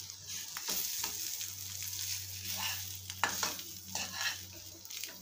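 A grated-potato patty sizzling in hot oil in a frying pan, while a metal spatula scrapes and taps against the pan several times as it pushes and shapes the patty.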